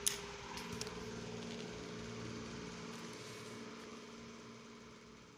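A steady hum with a low pitched drone in it. A few sharp clicks of the phone being handled come at the start and again just under a second in, and the hum fades near the end.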